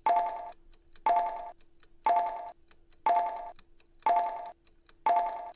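Countdown timer sound effect: a bell-like electronic ding struck once a second, six times, each ringing for about half a second before fading, with faint quick ticks in the gaps between.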